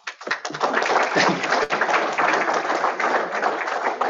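Audience applauding: many hands clapping at once, building over the first second and starting to thin out near the end.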